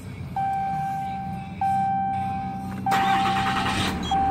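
A Ram 2500 pickup's warning chime sounds in long, even tones, about one every 1.25 seconds, over the low, steady sound of the truck. About three seconds in, a short burst of noise comes as the engine is started.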